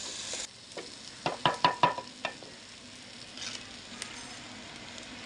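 Potatoes sizzling as they fry in oil and masala, cut off suddenly about half a second in. Then a wooden spoon stirs and knocks against the clay cooking pot about six times in quick succession, each knock with a short ringing note.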